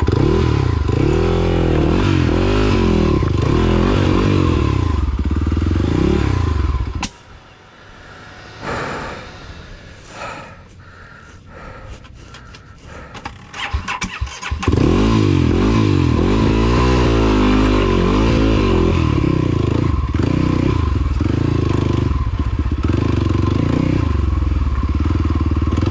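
Single-cylinder four-stroke engine of a 2017 Kawasaki KLX250 with a 363 cc big-bore kit and full aftermarket exhaust, revving up and down repeatedly as the bike picks slowly over riverbed rocks. About seven seconds in the engine cuts out, leaving a few seconds of scattered clicks and knocks. It then starts again and revs up and down as before, the big-bore four-stroke unhappy at crawling pace.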